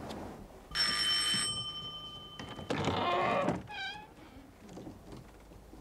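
A doorbell rings twice: first a bright ring whose tones linger and fade, then a longer, rougher ring about two seconds later, followed by a brief high squeak.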